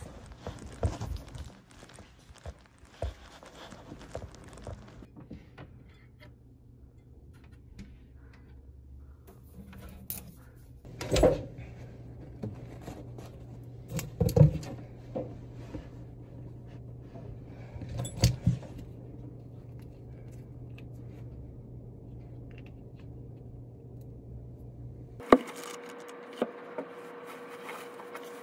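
Handling noise of belongings being unpacked onto a desk: rustling with a few sharp knocks and clacks as things are set down. A steady low hum runs underneath and cuts out near the end, where a faint steady tone takes its place.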